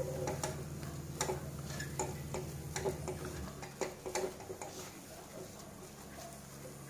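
A silicone spatula ticks and scrapes against a kadai while stirring a thick mashed-potato filling. The clicks come irregularly, a few a second, over a low steady hum that stops about halfway through.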